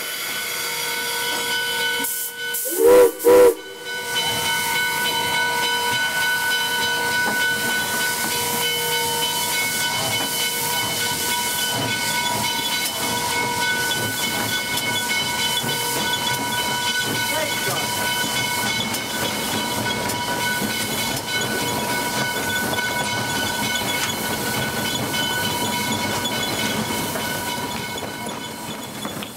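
Two short blasts of a steam locomotive whistle about three seconds in, the standard signal for moving ahead, followed by a steady hiss of steam.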